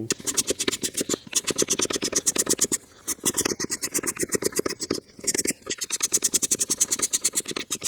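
Hand-operated vacuum oil extractor pump being pumped: a fast, even run of scratchy clicks, about ten a second, with short pauses about three and five seconds in. No oil is being drawn up yet.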